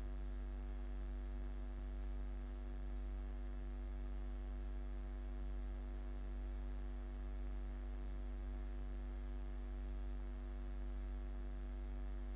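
Steady electrical mains hum with a ladder of overtones and a faint hiss, unchanging throughout.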